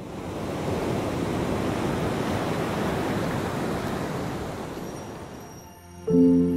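Steady rush of surf breaking on a sandy beach, fading away over the last second or so. About six seconds in, a sustained ambient music chord comes in abruptly.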